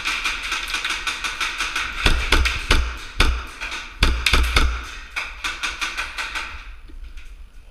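Airsoft gun firing on full auto: a fast, even train of clicks lasting several seconds, thinning out near the end, with a few heavier thumps in the middle.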